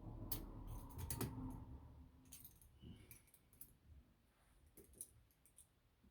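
Faint jingling of keys and scattered small metallic clicks as an all-brass padlock and its keys are handled, with a low handling rumble in the first two seconds.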